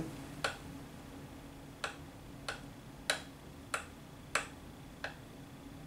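A glass microscope slide tapped sharply on its edge seven times, about every half second after the first, to knock off excess Diff-Quik stain after staining a blood film.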